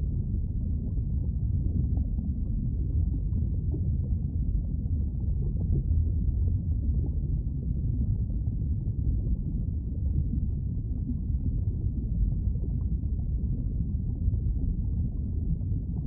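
Lava river sound effect: a deep, steady rumble with all its sound down low and nothing in the upper range.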